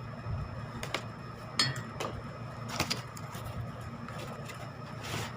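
Scissors cutting open packaging, with handling noise: a few separate sharp snips and clicks, one with a brief squeak.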